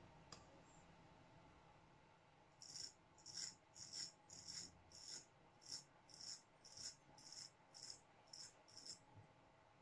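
Straight razor scraping through lathered beard stubble: a run of short rasping strokes, about two a second, starting a couple of seconds in.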